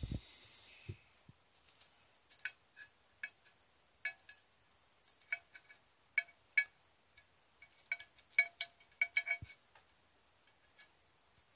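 Faint, light metallic clinks and ticks in a few irregular clusters, each with a brief ringing tone: a coil spring and valve plunger being handled and worked out of their bore in the valve body of a Mercedes 722.6 automatic transmission.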